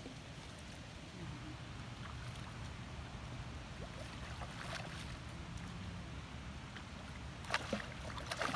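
Hooked pink salmon thrashing at the surface in shallow river water: soft sloshing, with a few sharper splashes near the end.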